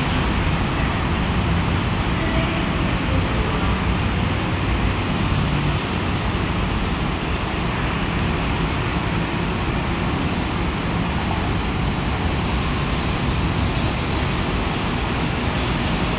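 Steady urban traffic noise with a heavy low rumble, as a rubber-tyred monorail train comes in along the elevated guideway. A faint high whine starts about ten seconds in.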